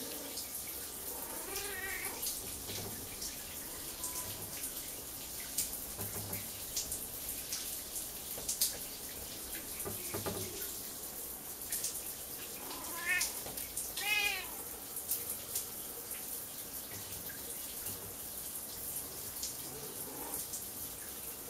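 Siamese cat meowing: once about two seconds in, then twice in quick succession later, the last the loudest, over the steady hiss of running water.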